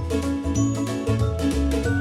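Upbeat background music with a steady beat, a bouncing bass line and bright chiming notes.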